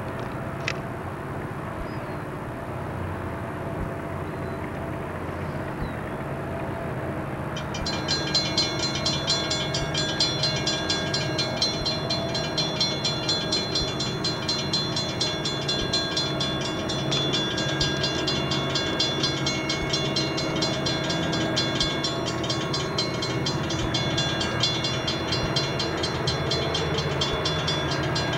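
Southern Pacific diesel freight locomotives approaching with a steady engine drone. About eight seconds in, a high metallic ringing joins, repeating about three times a second and continuing to the end.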